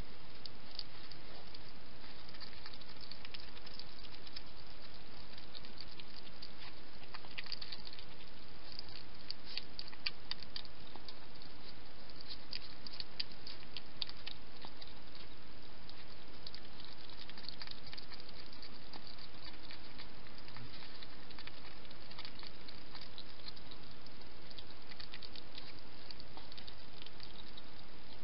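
Hedgehog eating noisily at a feeding bowl: fast runs of small wet clicks and smacks from its chewing, coming in clusters over a steady hiss.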